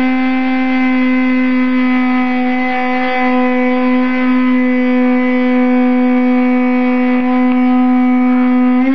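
Brushless three-phase spindle of a mini CNC mill running at a steady high speed while engraving a plastic plate: a loud, even whine held at one pitch.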